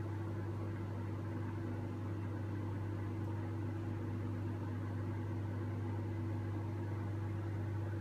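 Microwave oven running with a steady, even hum.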